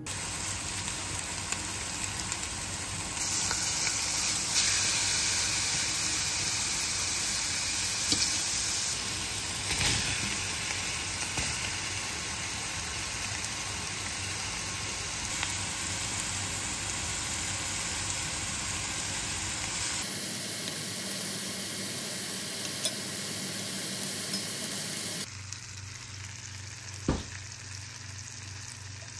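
Pork belly and other meat sizzling in hot fat in a cast-iron skillet, a steady spitting hiss. It turns quieter for the last few seconds, with a sharp clack near the end.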